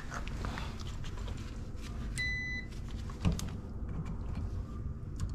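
A digital clamp meter on its continuity setting gives one short, high-pitched beep about two seconds in, with light clicks from the test probes and wire handling. No steady continuity tone follows: the wires do not ring out.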